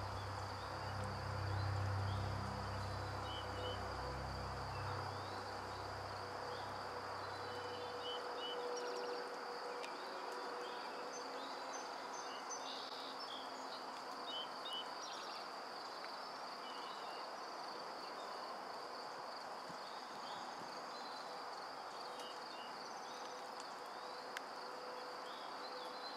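Outdoor insect chorus with a steady high-pitched drone, with scattered short bird chirps over it. A low rumble underneath fades out about eight seconds in.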